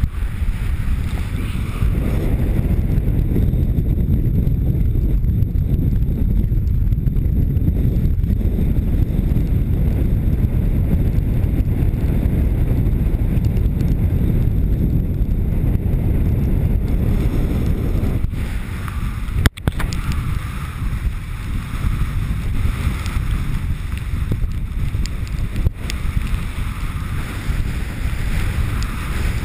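Heavy wind buffeting on the microphone of a camera carried in fast speed-riding flight close to a slope, a steady low roar with a brief sharp break about two-thirds of the way through.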